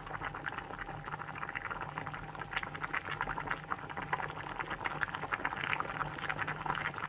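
Pot of nilagang baboy (Filipino pork stew) at a rolling boil: a steady, dense crackle of bubbles bursting at the surface of the broth.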